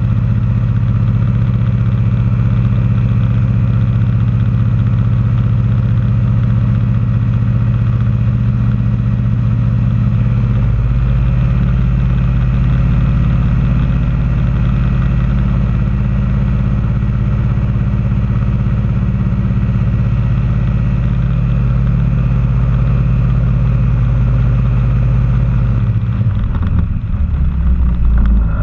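Challenger II ultralight's engine idling steadily at a standstill, heard close up. The engine note shifts about ten seconds in and changes again near the end.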